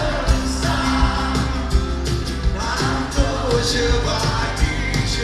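Live band playing a song with a steady beat, with acoustic guitar among the instruments, heard from the audience in a concert hall.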